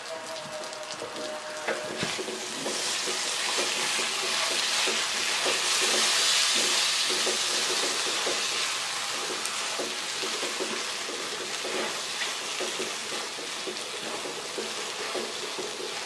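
Sliced sausages sizzling in oyster sauce and sweet soy sauce in a hot nonstick wok, stirred with a spatula that scrapes and taps the pan throughout. The sizzling swells from about two seconds in, is loudest a few seconds later, then eases a little.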